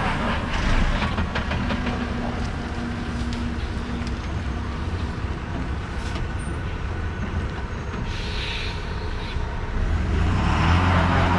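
Ashok Leyland 12-wheel lorry's diesel engine labouring at low speed under a heavy load, with a brief hiss about three-quarters of the way through; near the end the engine grows louder as it takes more throttle.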